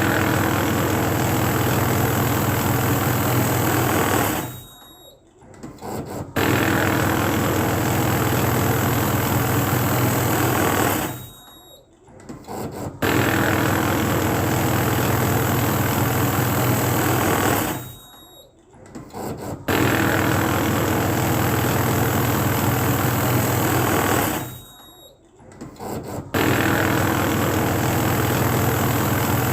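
Banknote counting machine running in repeated cycles: each run is a steady whirring of about four and a half seconds that winds down into a short lull with a few small clicks, then starts again abruptly. The cycle comes round about every six and a half seconds.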